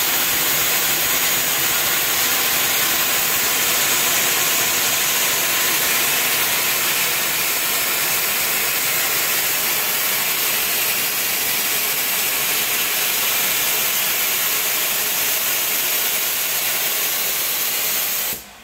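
Steam locomotive venting steam in a loud, steady hiss that cuts off suddenly near the end.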